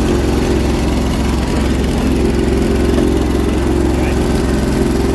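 John Deere 317 garden tractor's engine running steadily.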